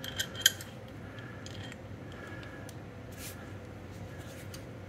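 Adjustable wrench tightening a steel reusable hydraulic hose fitting: a few light metallic clicks and taps, the sharpest two within the first half second, then fainter scattered ticks.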